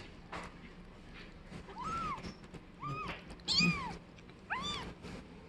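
Kittens mewing, about five short high calls, each rising and falling in pitch, starting about two seconds in.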